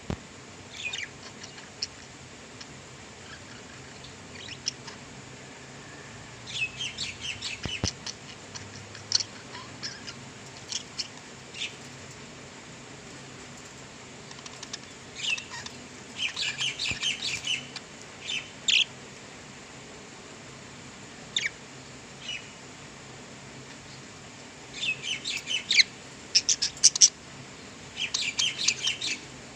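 Budgerigars chirping and chattering in clusters of quick, high chirps, with quiet pauses between the clusters.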